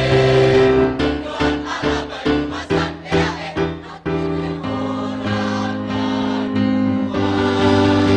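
A choir singing with instrumental accompaniment: one held chord, then short detached chords about two or three a second, then long sustained chords from about halfway through.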